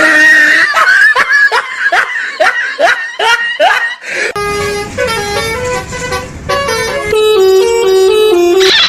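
A high warbling sound with quick repeated pitch swoops, then a multi-tone bus 'telolet' horn playing a tune note by note from about halfway through.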